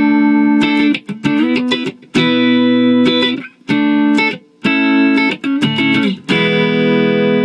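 Clean electric guitar chords on a Reverend Manta Ray HB's neck pickup through an Alessandro Working Dog tube amp: a run of short chords stopped with brief silent gaps between them, then a last chord left to ring out from about six seconds in.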